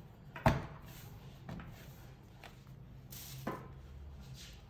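Knocks of a rolling pin and dough on a floured kitchen worktop: one sharp knock about half a second in, then lighter knocks about once a second.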